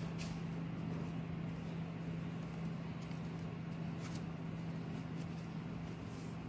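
Room tone: a steady low hum over a background hiss, with a few faint ticks.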